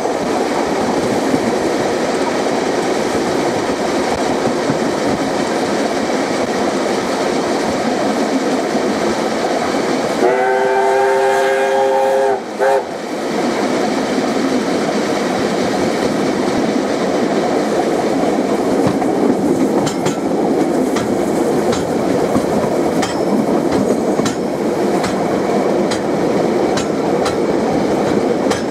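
Steam locomotive Ab608's chime whistle blown once for about two seconds, about ten seconds in, with a brief extra toot straight after. The steady running noise of the moving steam train goes on throughout, and the wheels click over rail joints in the second half.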